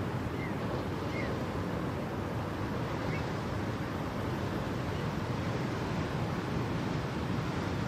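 Steady rushing noise, like wind, with a few faint short high chirps in the first few seconds.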